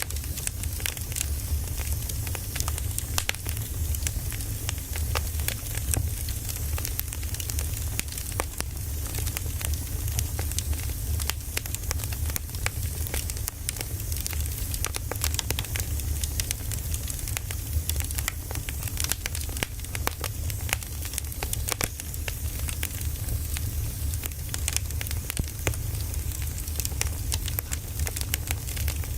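Wood fire burning, crackling with frequent irregular sharp pops over a steady low rumble.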